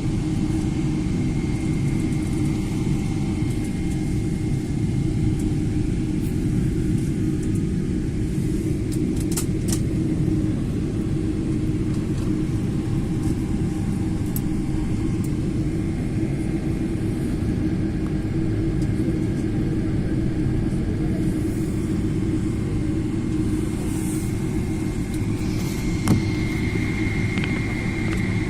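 Steady low rumble of an airliner on the ground, with a faint steady whine above it and a few light ticks.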